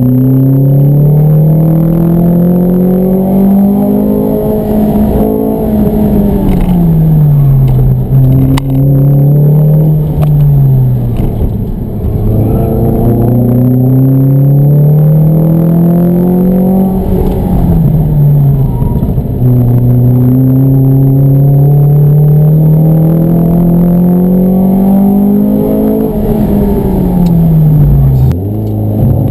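Ford Fiesta ST Mountune MR200's 2.0-litre four-cylinder engine, heard from inside the cabin while driven hard up a hill-climb course. The engine note climbs and falls several times as the car accelerates and slows for corners, with a sharp drop near the end.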